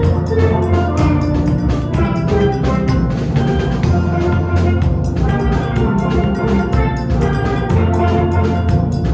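Steel pan band playing a lively tune: the higher pans ring out quick melody and chord notes over deep, sustained bass pan notes, with drums keeping a steady beat.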